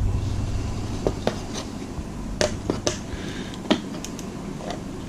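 Scattered sharp clicks and snaps from hand tools, cutters and prying, working on the plastic cartridge-slot connector of a circuit board, over a low steady hum.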